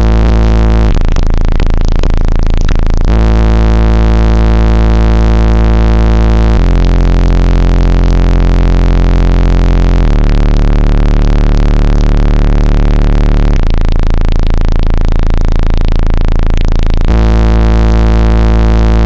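Car-audio subwoofers, 18-inch by the tags, playing bass-heavy music at extreme volume inside the vehicle's cabin, overloading the phone's microphone into distortion. Deep held bass notes change about every three and a half seconds, with a rougher passage early on. This is 'hair trick' level: the bass pressure is strong enough to whip a passenger's hair around.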